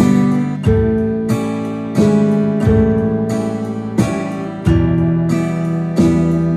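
Acoustic guitar strummed with a pick in a 3/4 waltz pattern: a bass note then two chord strokes per bar (boom-chick-chick), about one and a half strokes a second, changing chords every bar or two.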